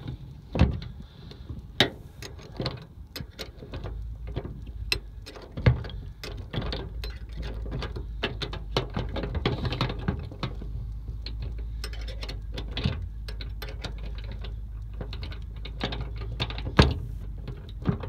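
Irregular metal clicks and clinks as a 9/16 wrench loosens the bolt of a steel hinge pin puller and the tool is worked off a van's side door hinge. A steady low rumble sets in underneath about four seconds in.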